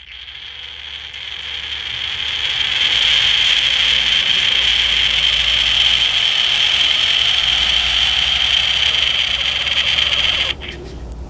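Graco TrueCoat 360 electric airless paint sprayer's pump running steadily with the prime valve open and the trigger held, pushing the air out of the system while it primes. It grows louder over the first few seconds and cuts off sharply near the end.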